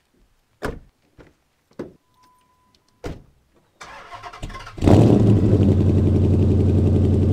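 A Dodge Charger is started. A few knocks and a brief chime come first. The starter cranks for about a second, then the engine catches with a loud flare about five seconds in and settles into a steady idle.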